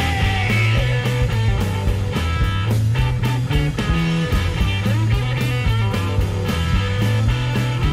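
Psychedelic rock band playing: guitar over a bass line and a steady beat.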